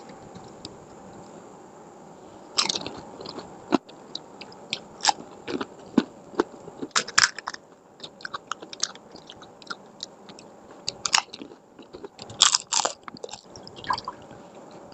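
Crisp fuchka (panipuri) shells being bitten and chewed close to the microphone, with irregular sharp crunches coming in clusters.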